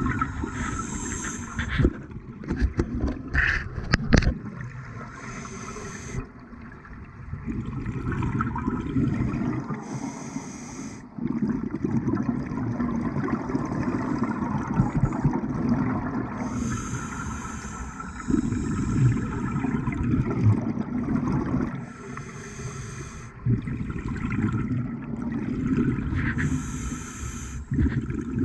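Scuba diver breathing underwater through a regulator: a short hiss on each inhale, then a longer rumble of exhaled bubbles, repeating about every five seconds. A few sharp clicks about three seconds in.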